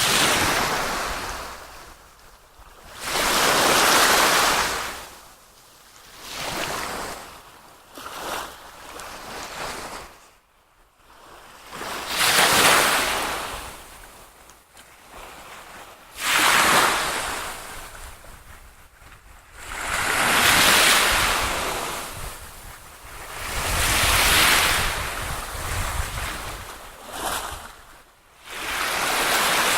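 Waves washing in repeated swells, each rising and fading over a second or two, about every four seconds.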